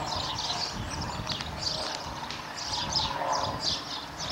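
Many birds chirping: a dense run of short, high calls, several a second, over a low rumble on the microphone.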